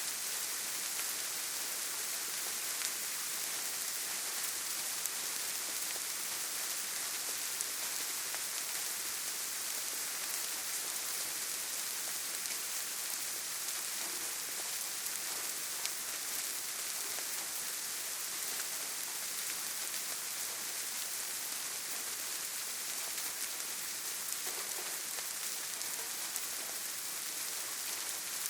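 Steady soft rain falling on surfaces: an even hiss of many drops with faint scattered individual drop ticks.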